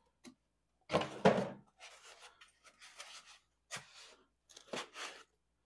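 Cardboard box and styrofoam packing being handled: a foam insert is slid out of a small box and an item is worked out of the foam. It comes as irregular short rubbing and scraping sounds, loudest about a second in.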